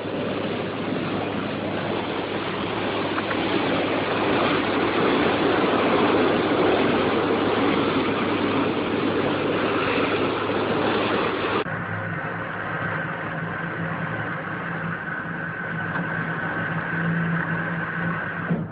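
A motorboat's engine runs at speed, with rushing water. About two-thirds of the way through it cuts abruptly to a quieter, steadier engine hum with a held tone.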